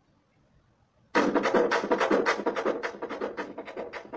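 A song from the rewired pen drive starting to play through the iPad's speaker about a second in, a fast, even beat of about six strokes a second that slowly fades.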